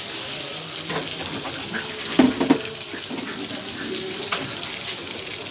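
Oil sizzling steadily in a frying pan on a gas stove, with two sharp knocks about two seconds in.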